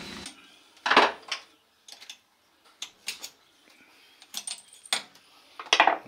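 Metal motorcycle rear-shock parts and tools clinking and knocking as they are handled on a workbench: scattered sharp metallic clicks, the loudest about a second in and a quick cluster near the end.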